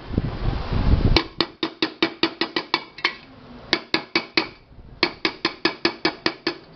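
Small hammer tapping fast along the rim of an aluminium pressure cooker, with a hand braced inside the pot, knocking out dents in the rim. The ringing metal taps come about five a second in runs broken by two short pauses. A low rumble of handling comes before the first tap, about a second in.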